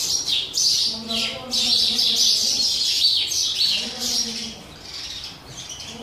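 House sparrows chirping rapidly and continuously, loudest for the first four seconds or so, then quieter.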